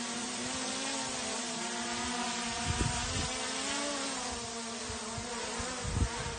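DJI Mini 3 Pro quadcopter's propellers buzzing as it hovers low and then climbs: a steady whine whose pitch rises briefly in the middle. A few short low thumps come about two and a half seconds in and a louder one near the end.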